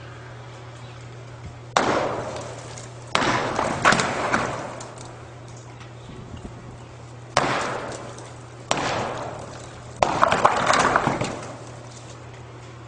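Sledgehammer blows against a silo wall, five in all, each a sharp crack followed by a clatter of breaking material that dies away over a second or so; the last blows come in a quick cluster near the end.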